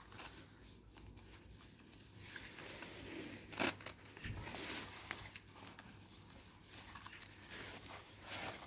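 A wet, muddy leather knee-high boot being gripped and pulled by hand in wet sand: irregular crinkling and rustling of the material, with a sharp crack about three and a half seconds in.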